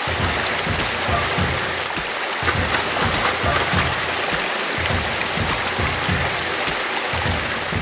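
Steady rush of running water from a small woodland stream, with background music's low, regular beat under it.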